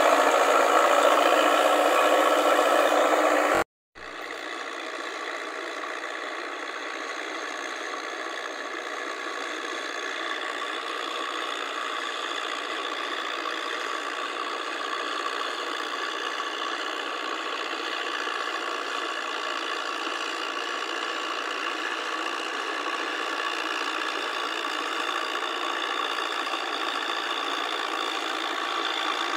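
Farm tractor diesel engines running steadily while the tractors pull rotary tillers through a flooded rice paddy. The sound is loud and close for the first few seconds, cuts out briefly, then carries on quieter and farther off, slowly growing louder toward the end.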